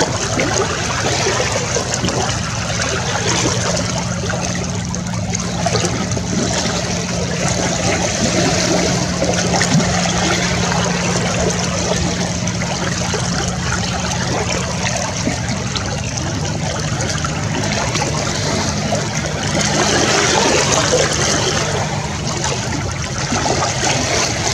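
Small waves lapping and sloshing right at a microphone held at the water's surface, a steady busy watery splashing. A faint low hum sits under it for much of the time.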